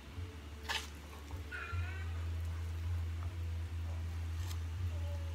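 Metal spoon clicking sharply twice against the bowl or pan, about a second in and again near the end, over a steady low hum. A short, high, wavering call sounds about a second and a half in.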